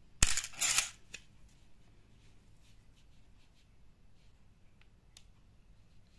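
Canon AE-1 Program with a Canon Motor Drive MA firing a single frame: a sharp shutter click followed immediately by the short whir of the motor advancing, all over within about a second. Faint handling clicks follow as the camera is turned over.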